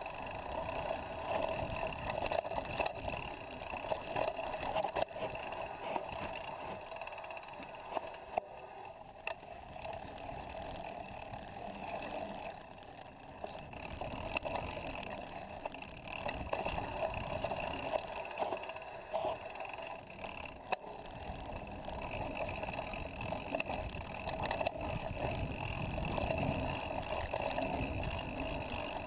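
Mountain bike riding down a dirt singletrack, heard from a camera mounted on the bike: a steady rush of wind buffeting the microphone and knobby tyres rolling over dirt and rocks, with scattered sharp clicks and rattles from the bike.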